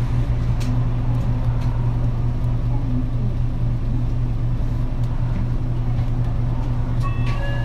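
Diesel engine of a 2008 PDG-RA273KAN city bus running steadily, heard from inside, with an even low hum that holds its pitch. A few short electronic tones start near the end.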